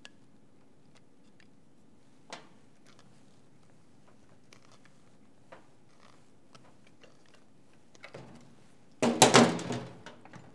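Hand-tool work on the threaded fitting of a small pressure gauge in an instrument chassis: a few faint metal clicks, then about a second of loud clattering and knocking near the end as the gauge is turned and handled.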